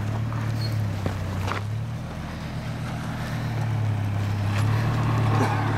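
4x4 truck engine running steadily at low speed, with a deep, even hum that grows somewhat louder in the second half as the truck creeps over the trail obstacle.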